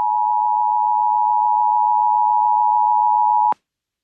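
Emergency Alert System attention signal: a loud, steady two-tone beep that cuts off abruptly about three and a half seconds in.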